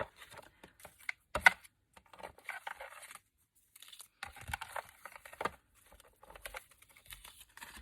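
Paper sheets and cut-out card toppers being shuffled and moved about on a desk: rustling and light taps, with one sharper knock about one and a half seconds in.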